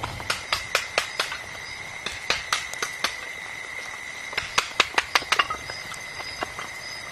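Insects buzzing steadily at one high pitch, under irregular sharp ticks and taps.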